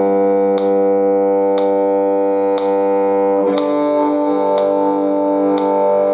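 Bowed string instrument sustaining long whole notes on open strings, moving to a new note or two-string double stop about three and a half seconds in. A sharp click keeps a steady beat once a second.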